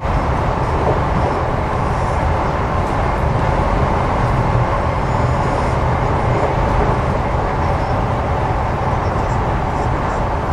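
Steady rumble and running noise of a moving passenger train, heard from inside the carriage.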